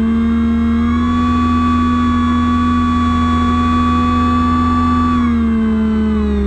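Jet ski engine running at a steady cruising speed with a constant whine, then the pitch falls from about five seconds in as the throttle is eased off.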